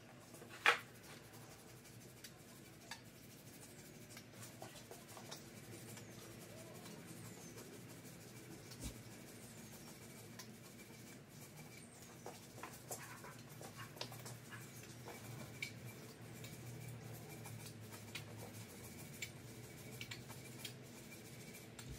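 Faint puffs, soft squeaks and scattered light clicks from a plastic puffer bottle being squeezed to dust flocking fibres onto a glued dash, over a low steady hum, with one sharper click about a second in.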